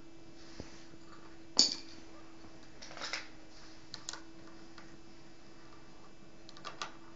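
A few light, scattered knocks and taps, the loudest about one and a half seconds in and two faint ones near the end, over a faint steady hum.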